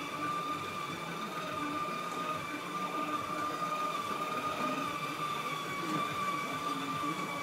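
Battery-powered ride-on toy train running, its electric motor giving a steady high-pitched whine.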